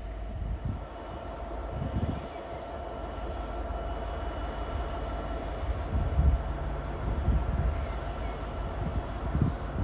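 EWS class 66 diesel-electric locomotive's two-stroke V12 engine running as the locomotive sets off with its train, a steady whine over a low rumble, with a few short low thumps.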